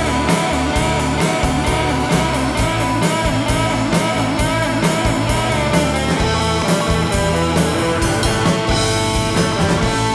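Blues-rock band playing an instrumental passage without vocals: electric guitar and keyboard over a drum kit keeping a steady beat.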